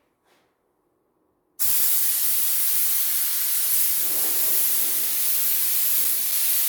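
Air compressor's pressure relief valve venting air in a loud, steady hiss that starts suddenly about a second and a half in. The hiss is the sign that the pump unit has been stopped at full tank pressure, about 10 bar, and its line is being bled off.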